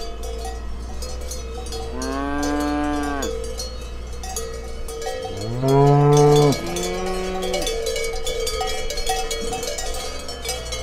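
Herd of cows walking with cowbells on their collars, the bells clanking continuously, while cows moo: one long moo about two seconds in, a louder one near the middle and a shorter call right after it.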